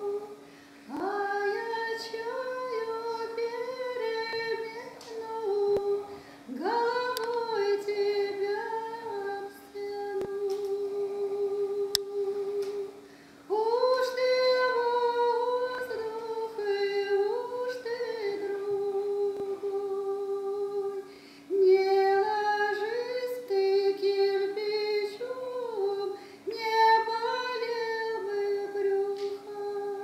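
A woman singing a slow lullaby melody unaccompanied, in long phrases of held, wavering notes with short breaks for breath, over a faint steady low drone.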